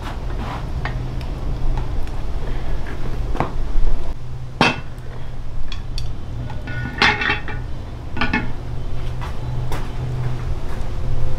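Dishes, pots and metal utensils clinking and knocking: scattered sharp clinks, one of which rings briefly about seven seconds in, over a steady low hum.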